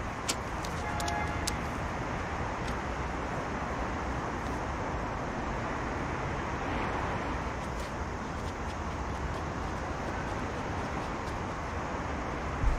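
Steady road traffic noise, cars running on a multi-lane road, with a few faint clicks in the first two seconds.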